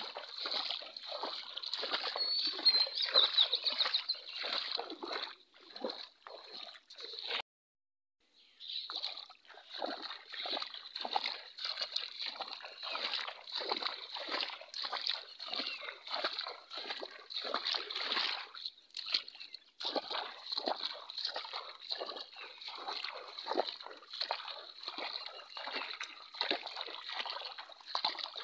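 Bare feet wading through shallow floodwater in a paddy field, splashing and sloshing with each step. The sound cuts out for about a second a quarter of the way in.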